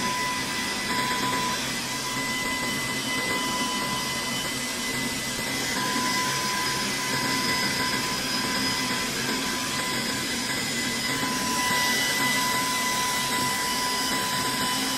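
Steady fan noise of a fume extractor drawing air over a soldering bench, with a thin steady whine.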